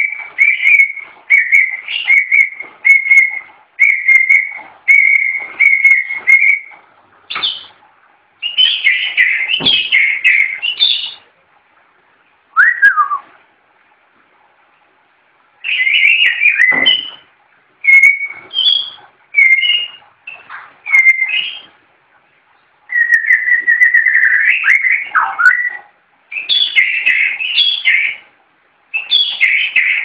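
Caged white-rumped shama singing loud whistled song: a quick run of repeated notes on one pitch for the first several seconds, then varied rising and falling phrases with short pauses between them.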